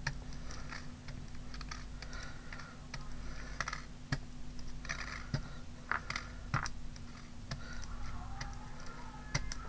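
Irregular light taps and clicks of a foam paint pad dabbing paint onto a box lid, over a faint steady hum.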